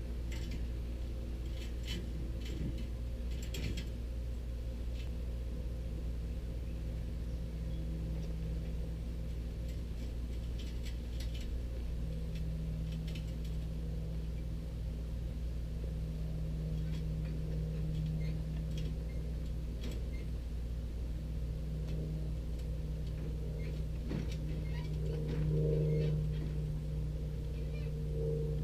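A motor running steadily: a low rumble with an even hum, and a few faint ticks.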